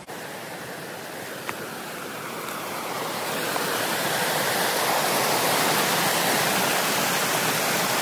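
Steady rushing of running water, growing louder over the first few seconds and then holding steady.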